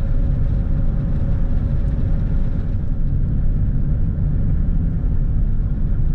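Steady low rumble of a vehicle driving along a paved road: engine and tyre noise with no change in speed.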